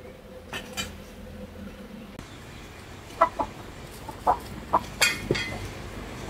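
Chickens clucking: a string of short, loud clucks in the second half.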